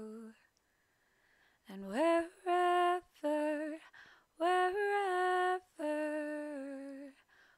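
A woman singing unaccompanied, a slow melody of long held notes. After a short breath pause near the start, she slides up into the first note and sustains the line on drawn-out vowels.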